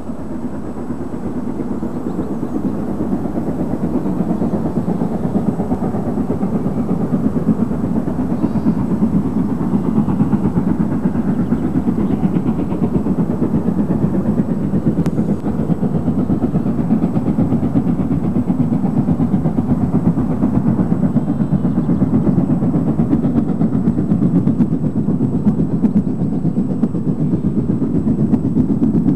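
LMS Princess Royal class four-cylinder Pacific No. 6201 Princess Elizabeth working a train under steam, with a fast, even exhaust beat. It grows louder over the first several seconds as the engine approaches, then holds steady.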